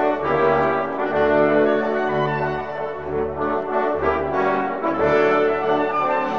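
Orchestral music with brass instruments to the fore, playing held chords over a pulsing bass line.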